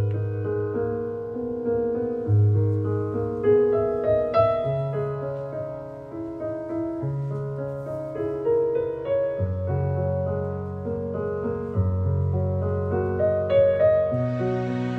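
Background piano music: a slow melody over held bass notes. A soft hiss joins about a second before the end.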